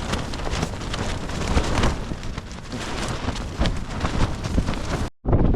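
Tent fabric flapping and cracking hard in strong gusting wind, a dense run of sharp snaps over a constant rush. The sound breaks off abruptly near the end.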